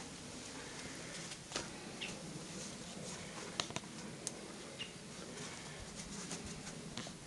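A few short, high bird chirps and scattered light clicks and ticks over a faint steady background.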